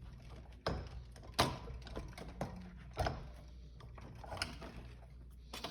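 Scattered sharp knocks and clicks, about five over a few seconds, as scooter wheel parts (axle, washers, spacer) are handled and fitted, over a steady low hum.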